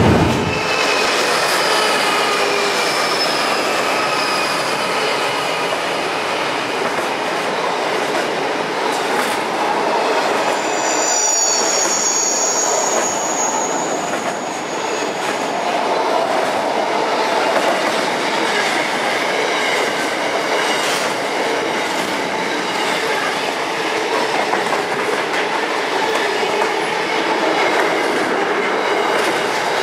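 Container wagons of an intermodal freight train rolling past close by at speed: a steady rumble and rattle of wheels on rail. High-pitched wheel squeals ring out over it, the clearest about a third of the way through.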